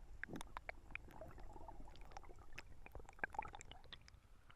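Faint, irregular small splashes and wet clicks of river water being disturbed, with a low rumble beneath.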